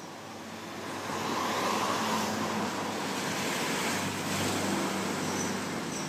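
Road traffic: a passing vehicle's engine and tyre noise swells about a second in and stays up as a steady rush.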